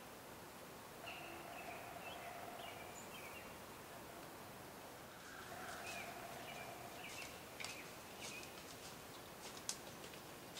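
Faint woodland ambience with birds calling: short, repeated high chirps and a couple of longer steady notes. In the second half come footsteps in dry leaf litter, as sharp rustling clicks.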